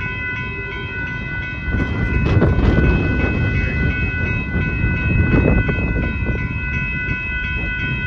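Railroad crossing warning bell ringing steadily while the crossing gates come down, with bursts of low rumble about two seconds in and again past five seconds.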